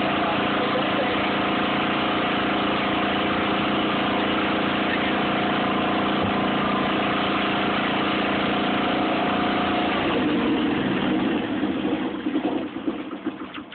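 John Deere garden tractor's engine idling steadily; about ten seconds in its note changes, and it runs down to a stop near the end.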